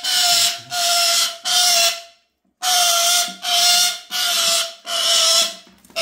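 Black-capped lory screeching, a fast run of about eight harsh, grating calls with one short break just after two seconds. These are the protest calls of an untamed, aggressive bird being soaked in a basin of water.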